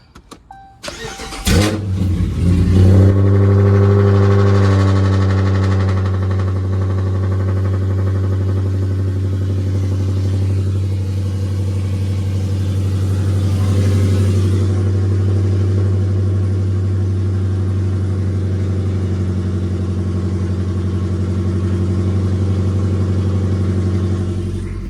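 Dodge Charger R/T's 5.7 Hemi V8, running a burble tune, cranks and catches about a second and a half in, flares briefly, then settles into a steady idle.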